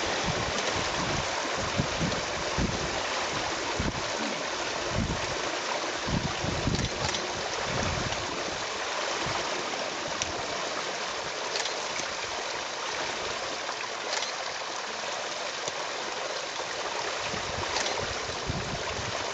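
A steady rushing hiss of outdoor water or rain noise, with irregular low rumbles of wind buffeting the microphone, mostly in the first half, and a few faint clicks.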